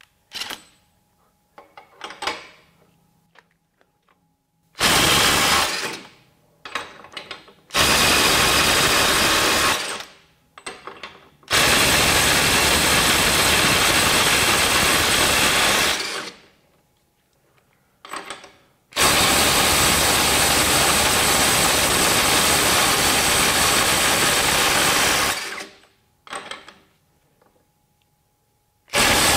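Ridgid brushless impact driver hammering rapidly as it breaks loose heavily torqued nuts, 250 to 400 foot-pounds, through a 33 mm socket. There are four runs of impacting, each longer than the one before, from about one second to about six seconds, with small clicks and taps of the socket going onto each nut between them.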